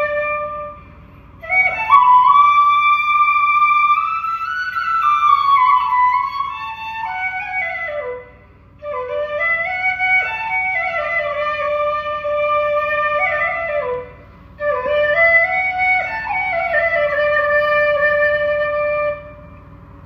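Background music: a slow solo melody of long held notes that slide between pitches, played in phrases with short pauses between them.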